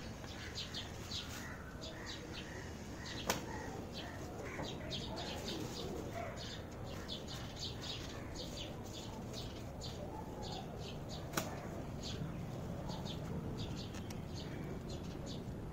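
Small birds chirping in short, irregular calls over a steady outdoor background, with two sharp clicks.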